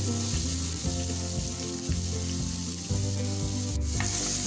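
Chopped onions sizzling in hot oil in a nonstick frying pan, a steady hiss, with a wooden spatula scraping the pan near the end as they are stirred. Background music plays underneath.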